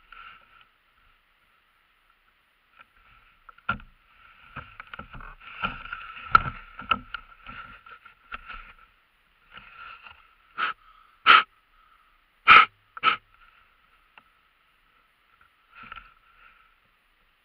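Sled dogs whining in high-pitched pulses while the team stands stopped, a sign of their eagerness to run. Four loud yelps come in a cluster a little past halfway, with a last short whine near the end.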